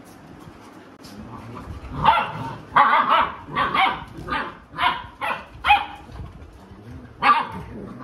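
Labrador dogs barking: a run of short, sharp barks from about two seconds in, roughly two a second, then a pause and one more bark near the end.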